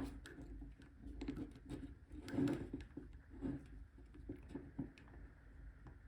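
Faint, scattered small clicks, taps and scrapes of a metal pick being worked in an Abloy Exec PL340 disc-detainer padlock, with a couple of slightly louder soft knocks near the middle.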